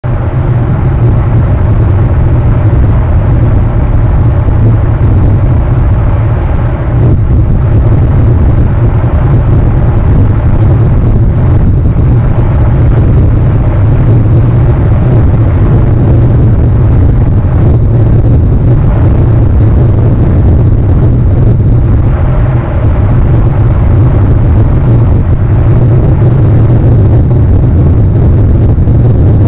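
Steady, loud, low roar of wind and breaking surf, with no distinct events or calls standing out.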